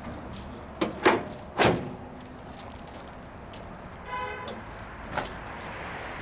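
Steel hood of a 1970 Plymouth 'Cuda being shut: three sharp metal thumps about a second in, the last and loudest ringing briefly. A short squeak and a small click follow as the hood is pressed down and its pins fastened.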